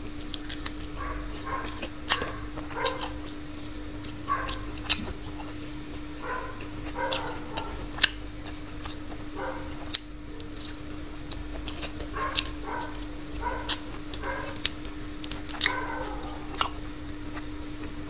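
Close-miked chewing and lip-smacking on a fried chicken leg: many sharp wet clicks, with short high-pitched squeaky sounds recurring throughout. A steady low hum sits underneath.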